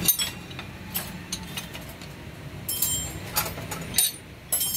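Scattered metallic clicks and clinks from handling a diesel fuel feed pump clamped in a steel bench vise, among metal tools and parts, over a steady low hum.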